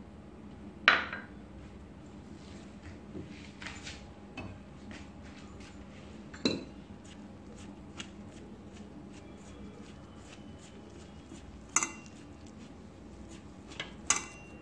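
A few sharp metallic clinks against a stainless steel mixing bowl, the loudest about a second in, as a dry flour-and-spice mix is worked by hand in it.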